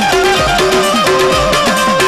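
Gujarati dakla folk music without singing: a steady held melody over a hand drum whose strokes bend up and down in pitch.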